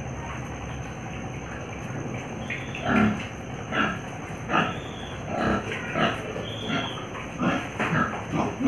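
Pigs grunting in a run of short, separate calls, some of them higher and squeal-like, starting about two and a half seconds in and coming roughly once or twice a second.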